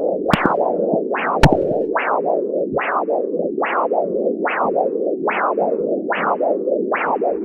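Handheld CAT+ Doppler ultrasound probe picking up an arterial pulse through its speaker: a rhythmic whooshing beat about every 0.8 seconds, roughly 72 a minute. Each beat is a quick rising swish that tails off, over a steady hiss. Two sharp clicks come about half a second and a second and a half in.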